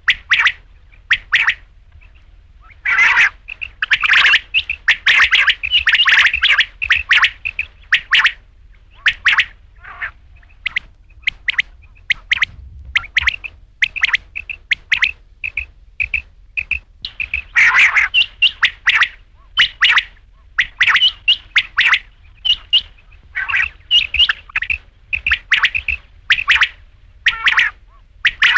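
Quail calling: short, sharp notes repeated in quick runs, with denser, louder runs of calls about three seconds in and again past the middle.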